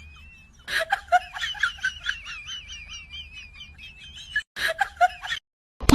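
Many small birds chirping in quick, high, wavering notes, with a few knocks mixed in about a second in; the chirping cuts out shortly before the end.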